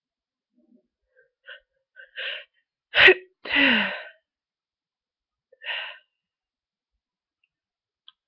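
A person with a head cold sneezing once about three seconds in: a few short catching breaths build up, then a sharp, loud sneeze with a longer trailing sound that falls in pitch, and one more breath near six seconds.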